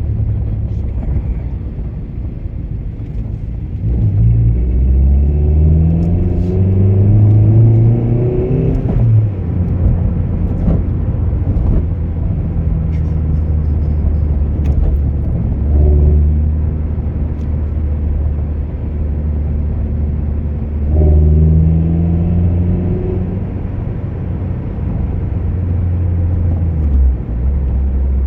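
Car engine heard from inside the cabin while driving: it pulls hard with a rising pitch from about four seconds in, drops sharply at a gear change near nine seconds, runs steadily, then pulls briefly again around twenty-one seconds.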